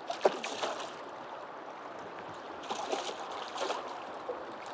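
A hooked Atlantic salmon thrashing and splashing at the surface of a shallow river over the steady rush of the current. There are short splashes just after the start and again about three seconds in.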